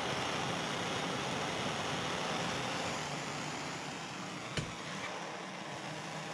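Steady rushing noise of a running machine that eases slightly about halfway through, with one sharp click about three quarters of the way in.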